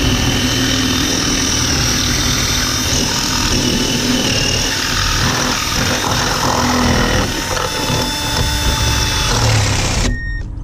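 Power drill running under load, drilling out a worn steel door hinge pin on a 1999 Jeep Cherokee; it stops briefly near the end.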